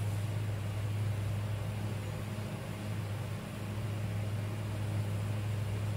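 A steady low hum with an even faint hiss over it: continuous background noise from a machine or appliance running in the room.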